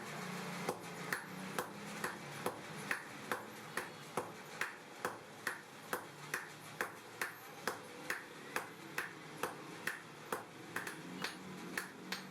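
Hand hammer striking hot steel on an anvil in a steady forging rhythm, about two blows a second, each blow ringing briefly.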